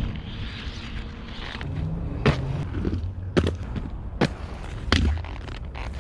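Inline skate wheels rolling on asphalt, then a series of about five sharp clacks as the skates land and strike the pavement during tricks and jumps.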